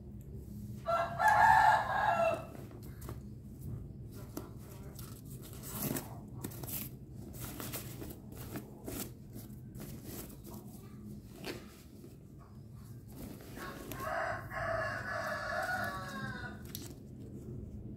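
A rooster crowing twice: a short crow about a second in and a longer one near the end that falls away at its close. In between come light rustles and clicks of a fishing rod being drawn out of its velvet cloth bag.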